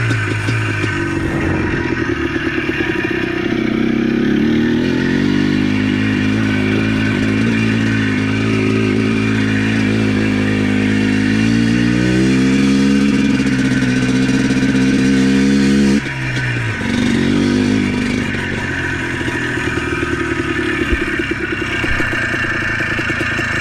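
ATV engine running under way. The revs climb about twelve seconds in, hold, then drop off sharply about four seconds later before settling at a lower, steady speed.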